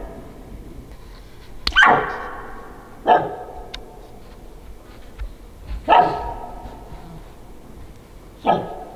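A spike bull elk barking: four short, sharp alarm barks a second or two apart, each sudden and loud, then quickly fading.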